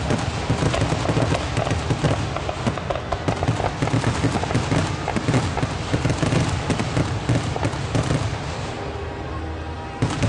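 Aerial fireworks display: rapid, overlapping booms and crackling bursts that thin out about eight and a half seconds in, then one more bang near the end.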